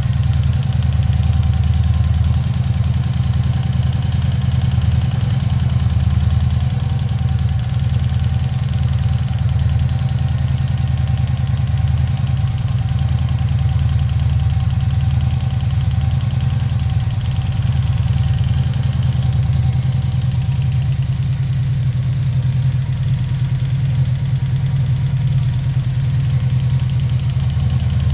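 1986 Honda VF700C's V4 engine idling steadily at about 1300 rpm, warmed up, with a noise from the rear cylinders that the owner cannot identify after a valve adjustment and carburettor cleaning.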